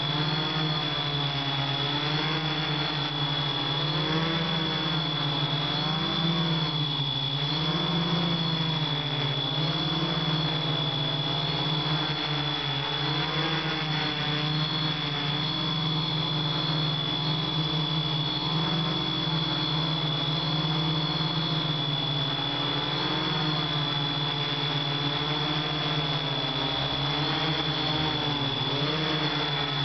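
Hexacopter drone's electric motors and propellers whirring steadily, heard close up from the onboard camera, the pitch wavering up and down as the motor speeds adjust in flight. A steady high whine runs over it.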